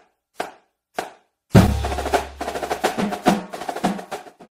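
Percussion-driven intro music: a few evenly spaced single hits, then a deep bass hit about a second and a half in launches a busy drum beat that stops abruptly near the end.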